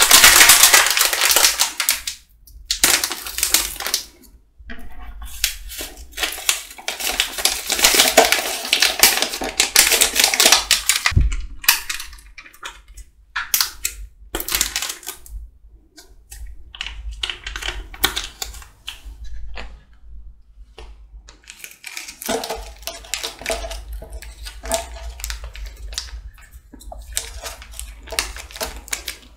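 Plastic cup-noodle seasoning and sauce sachets being shaken, crinkled and torn open: crisp crackling rustle in bursts with short pauses, loudest near the start and again around the middle. One soft low thump comes about eleven seconds in.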